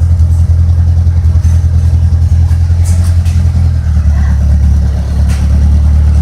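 Car engine running loud through a straight-pipe exhaust with the catalytic converter and muffler removed, held at raised revs in a steady low drone that drops a little in pitch about four seconds in as the revs ease.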